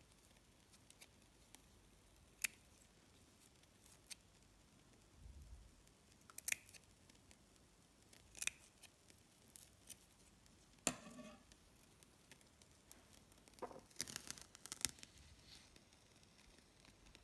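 Small scissors snipping short cuts into the edge of a satin ribbon leaf: single faint snips a second or two apart, with a quicker run of snips near the end.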